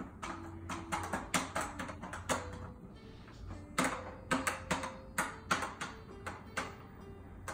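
Plastic keys of a children's light-up toy piano being pressed and slapped by a toddler: an irregular run of sharp plastic clacks, with short electronic notes from the toy held underneath.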